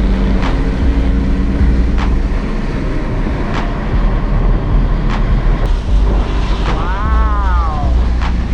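A BMW M car driving on a wet road: a steady engine and road rumble. There is a sharp click about every second and a half, and a short tone that slides up and then down about seven seconds in.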